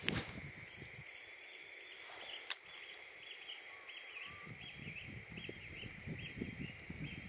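Outdoor animal chorus: a steady high-pitched drone with a run of short repeated chirps, about two a second. There is a sharp click about two and a half seconds in, and low rustling in the second half.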